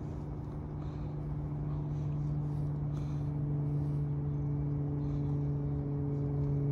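A steady low mechanical hum with a couple of higher overtones, dropping slightly in pitch near the end, with a few faint clicks over it.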